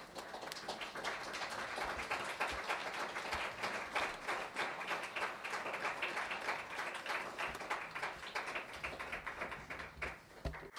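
Audience applauding, swelling over the first second and dying away shortly before the end.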